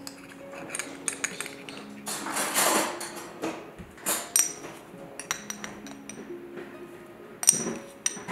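Metal spoons clinking and tapping against a ceramic mixing bowl and a glass spice jar as spices are measured in, with a few ringing clinks and a short rustling swell a couple of seconds in. Soft background music notes underneath.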